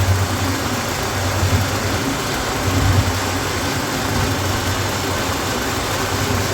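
Refrigeration condensing equipment running: a steady low hum with broad fan-like rushing noise over it.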